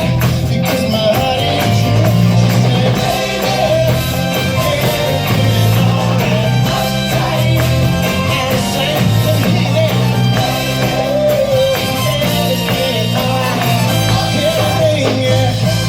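A vocal group and band performing live: loud amplified music with lead singing over a steady bass line and guitar.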